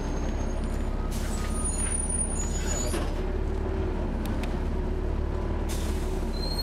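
Volvo B7TL double-decker bus running, heard from inside: its six-cylinder diesel and an unusually loud engine cooling fan make a steady drone. Two short air hisses cut in, about a second in and again near the end.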